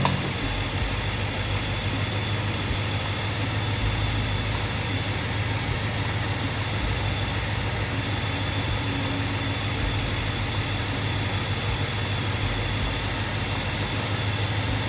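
2014 BMW M5's 4.4-litre twin-turbo V8 idling steadily.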